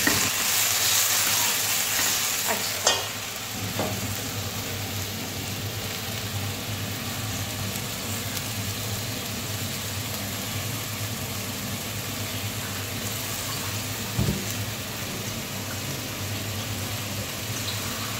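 Bottle gourd pieces and green chillies sizzling in oil in a pot while a spatula stirs them, with a few sharp knocks of the spatula against the pot in the first few seconds. After that the frying goes on as an even, steady sizzle, with one more knock a little past the middle.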